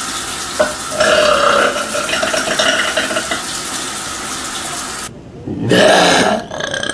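A woman belching: one long burp of about four to five seconds that holds a steady pitch, then after a short break a second, shorter and louder burp.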